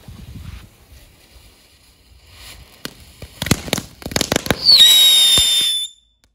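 A small Mirnovec ground firework, a combined crackling, whistling and fountain piece, going off. A quick run of sharp crackling pops comes first, then a loud high whistle that holds one pitch for about a second and cuts off suddenly.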